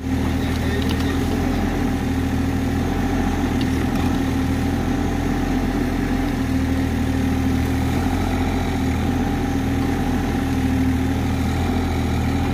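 Kubota U30-5 mini excavator's diesel engine running steadily while its boom and bucket dig.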